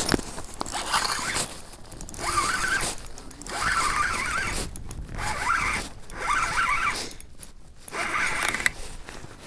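Fishing reel being cranked in repeated spurts of about a second each, with a fish on the line being reeled up through the ice hole.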